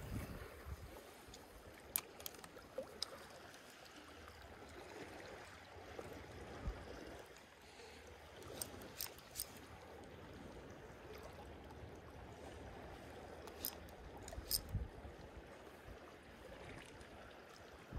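Small waves lapping and trickling against shoreline rocks, faint and steady, with scattered light clicks and taps.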